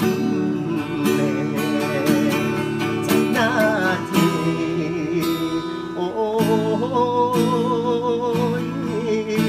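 Steel-string acoustic guitar strummed while a man sings along, holding long wavering notes in the second half.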